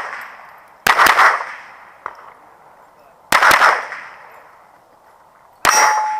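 Gunfire from a 9mm SIG pistol-caliber carbine, fired in quick strings of two or three shots: about a second in, at about three and a half seconds, and near the end, each string echoing and fading. Near the end a steel target is hit and rings with a steady tone.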